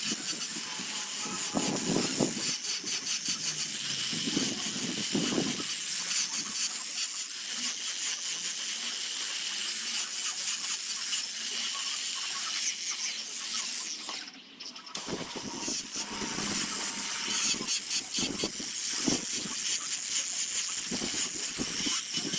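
A tool working wood with a fast, scratchy rasping made of many quick strokes, pausing briefly about two-thirds of the way through.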